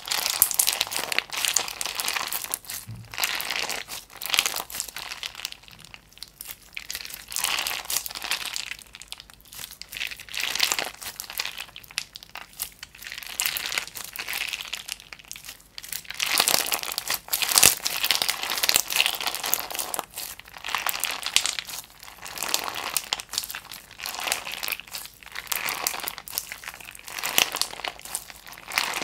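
Clear slime studded with pink and grey pieces being squeezed, pressed and pulled apart by hand, crackling and popping in repeated bursts of a second or two, one with each squeeze.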